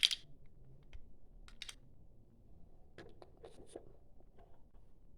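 Hard plastic toy parts clicking and tapping as stickered Playmobil panels are slid into a shelf: a sharp click at the start, a pair of light clicks about one and a half seconds in, and a cluster of small clicks about three seconds in.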